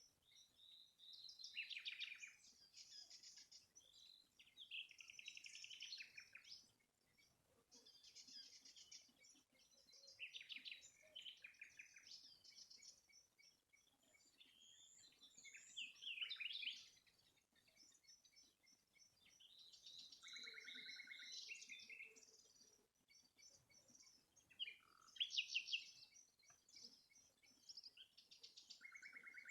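Songbirds singing: a string of fast chirping trills and warbled phrases, one after another with short pauses between them.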